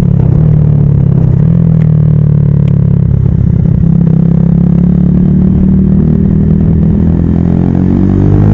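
Yamaha YZF R125's single-cylinder 125cc four-stroke engine running at a steady cruising speed, heard from on the bike.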